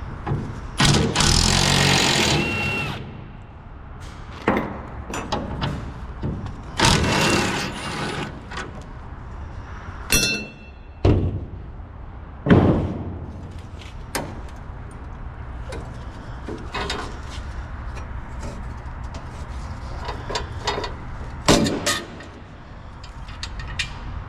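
Auto body work on sheet metal: short bursts of a power tool, each a second or two long, with sharp metal knocks and clanks between them and a steady low hum underneath.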